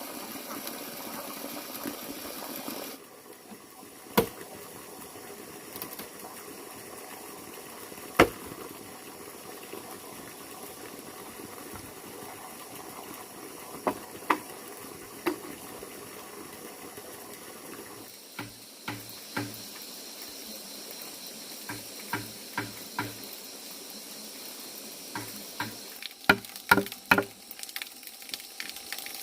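Steady rush of running water, with a few sharp knocks scattered through it and a quick run of knocks near the end.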